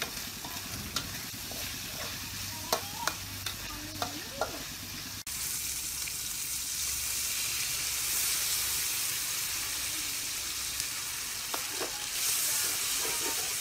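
Food frying in a hot metal wok over a wood fire, a metal spatula scraping and clinking against the pan while it is stirred. About five seconds in this gives way to a louder, steadier hiss after water is poured from a pot into the hot wok.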